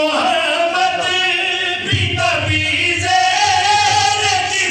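Several men chanting a devotional qasida together into microphones, their voices rising and falling in a sung melody without instruments.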